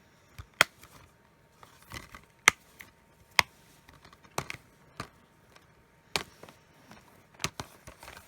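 Plastic Blu-ray cases and box-set packaging being handled: scattered sharp clicks and taps, about one a second.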